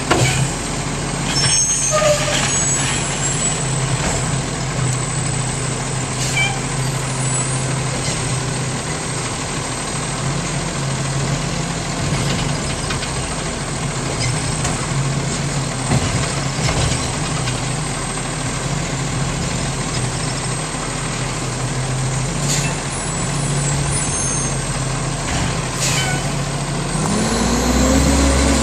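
Garbage truck's diesel engine idling steadily while it empties a cart with its lifting arm, with a few brief sharp sounds like air-brake hisses or clanks. Near the end the engine revs up as the truck pulls away.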